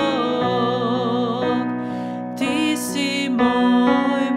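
A woman singing a slow song with vibrato on held notes, accompanied by keyboard chords.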